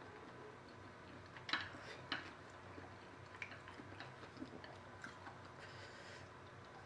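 Quiet chewing of fried noodles, with scattered light clicks of chopsticks against a plate; the loudest click comes about a second and a half in.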